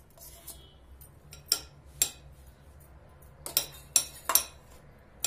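Metal spoon scraping thick cream out of a bowl and knocking against the bowl rims: a series of about seven sharp clinks, in two clusters, with quiet scraping between them.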